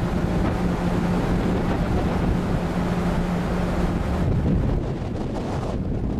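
Sea waves rushing in a continuous roar, with wind buffeting the microphone. A steady low hum sits under the noise and fades out about four and a half seconds in.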